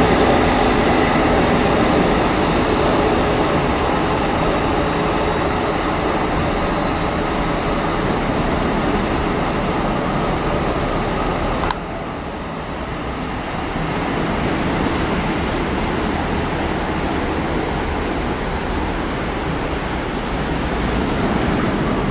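A train running along the line, its engine note loud at first and fading as it goes. About twelve seconds in the sound drops suddenly, and a steady rushing noise carries on after.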